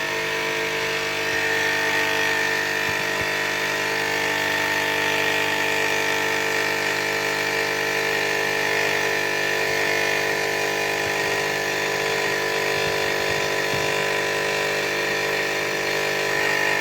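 Steam boiler's electric water feed pump running steadily after kicking in as water is drawn from the tap, an even hum with a high whine.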